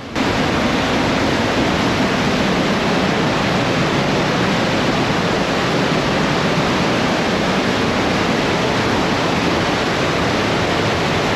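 Loud, steady rush of whitewater from the Partnach River churning through the narrow rock gorge.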